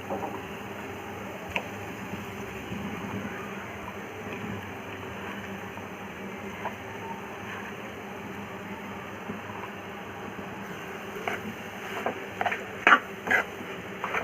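A steady low hiss, then in the last few seconds a spoon knocking and scraping against a metal kadai several times as mashed potato is added to frying vegetables.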